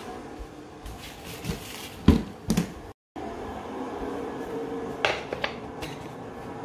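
Handling of instant-noodle packaging: a few sharp knocks and light rustling from a paper bowl, its paper lid and a clear plastic wrapper, over a steady hum. The loudest knock comes about two seconds in, and the sound cuts out briefly a little later.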